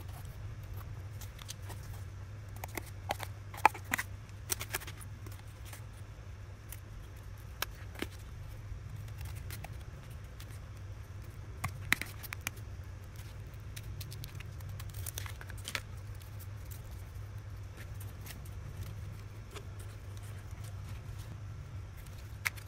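Scissors cutting corrugated cardboard and the cardboard being handled: scattered short snips and rustles, in clusters a few seconds in, around the middle and a little after, over a steady low hum.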